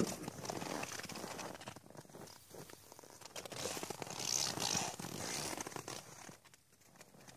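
Horse hooves and boots crunching in snow, in two spells: one in the first second and one around four to five seconds in.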